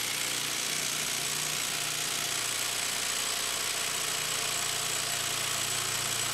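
Skil 12 V brushless impact driver on a 2 Ah battery hammering steadily under load against a hydraulic pressure-test rig. Its rapid impacts blend into an even, continuous buzz.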